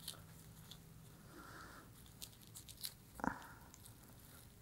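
Faint rustling and crackling of gloved hands and paper masking tape as a vinyl patch is laid onto wet glue and pressed down, with scattered small ticks and one louder crackle about three seconds in.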